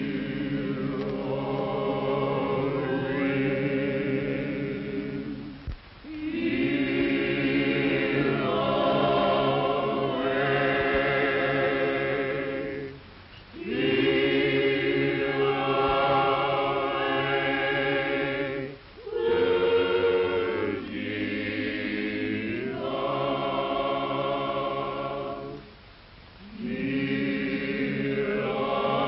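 A choir singing in long held phrases, pausing briefly about every six or seven seconds.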